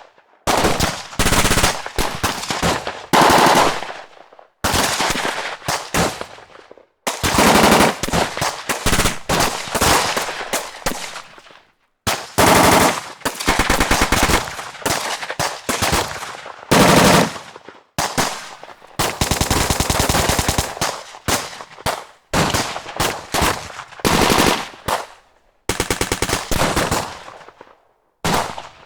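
Automatic gunfire in repeated short bursts of rapid shots, each burst lasting one to three seconds with brief pauses between, the shots trailing off in echo.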